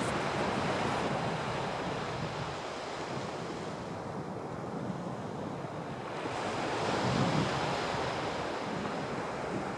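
Small waves breaking and washing up a sandy beach, a steady rush of surf that swells louder about seven seconds in, with wind buffeting the microphone.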